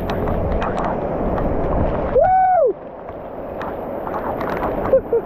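Heavy tropical rain hissing steadily, with many small patters and drips. About two seconds in, a short vocal sound rises and falls, and the rain noise drops to a lower level just after it.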